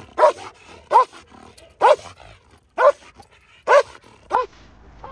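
Belgian Malinois barking in six short, loud barks about a second apart, eager to get on the bite sleeve.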